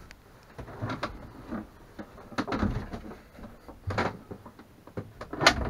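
Several knocks and bumps from a sailboat's wooden cabin door being handled and swung, the loudest near the end.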